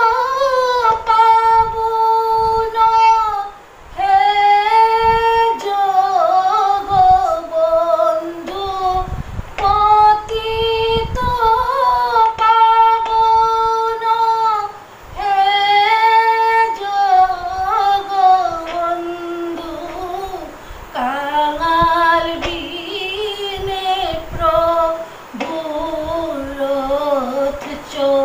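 A woman singing a Bengali devotional song solo into a microphone, drawing out long held notes that bend and waver between phrases, with two short breaths about four and fifteen seconds in.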